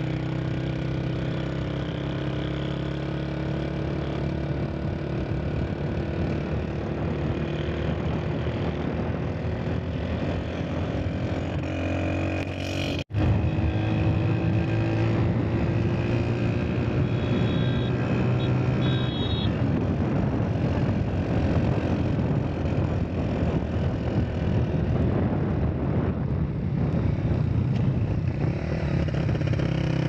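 Motorcycle engine running as the bike is ridden, its pitch rising slowly, over a steady rushing noise. The sound cuts out for an instant a little before the middle.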